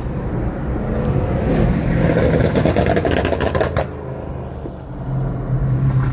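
A car engine revving hard with a rapid stuttering run of pulses, which drops away at about four seconds in. A deep engine keeps running underneath and picks up again near the end.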